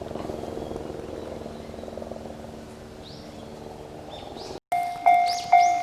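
A low, finely pulsing hum with a couple of short high chirps gives way, after an abrupt cut, to a Japanese railway level-crossing warning bell starting to ring, with loud decaying dings about twice a second. The bell signals that a train is approaching the crossing.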